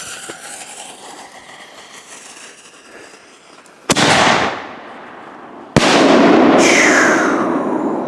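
Consumer fireworks cake firing: two sharp bangs about two seconds apart, the second followed by a long loud crackling hiss with a falling tone.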